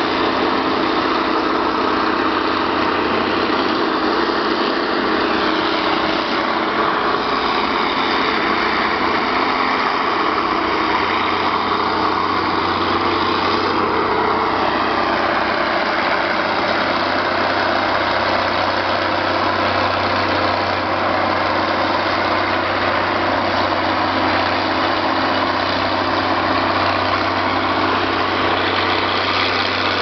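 Vintage construction machinery running together: a steady, dense mix of engines from old crawler tractors and a wheeled scraper, with steam shovels working.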